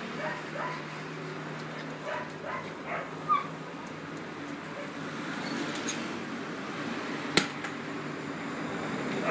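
Rough collie puppies at play giving short, high yips and whines, several in the first few seconds, then a sharp knock about seven seconds in.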